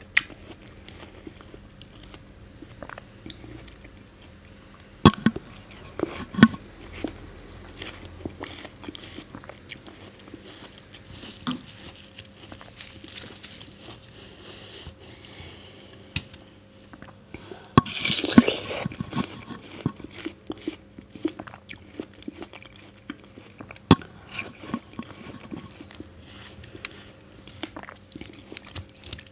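Close-miked biting and chewing of watermelon: crisp, wet crunches and chewing noises scattered throughout, with the loudest, longest bite about two-thirds of the way through.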